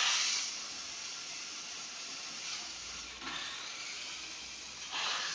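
Toy remote-control off-road car driving, its small electric motor and plastic gears whirring steadily, with surges about three seconds in and near the end.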